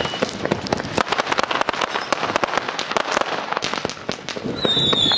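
Fireworks: many rapid crackling pops from crackling stars bursting overhead. Near the end a high whistle starts and holds, sinking slightly in pitch.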